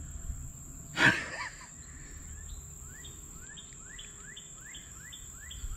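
Creekside summer ambience: a steady high-pitched insect buzz, joined from about halfway through by a run of short rising chirps repeating two or three times a second. One brief loud noise sounds about a second in.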